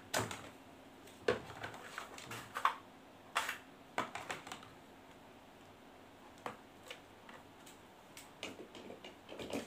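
Scattered light clicks and knocks of hard plastic being handled: a tool case, a battery charger and its cord being lifted out and moved about, at an irregular pace with a few louder knocks.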